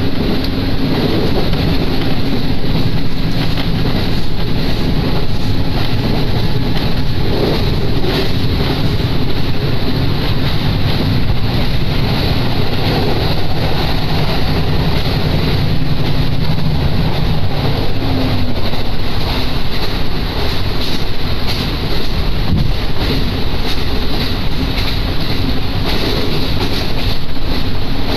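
Diesel railcar running at speed, heard from inside the car: a steady engine drone over a constant rush of wheel, rail and wind noise.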